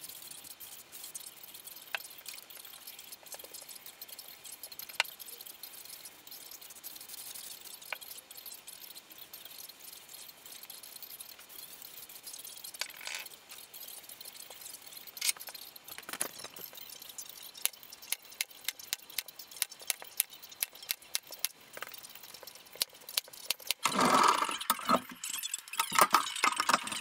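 Faint rustling and scattered sharp clicks as a sheet of leather is handled and smoothed down onto a board, the clicks coming more often later on. Louder, irregular noise starts about three seconds before the end.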